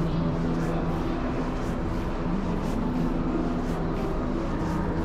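Steady low mechanical hum with a droning tone that shifts slightly in pitch, under faint even ticks about two or three a second.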